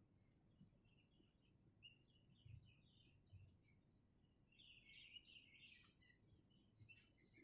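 Sooty-headed bulbul (kutilang) giving faint, scattered short chirps, with a denser run of chattering calls about five seconds in.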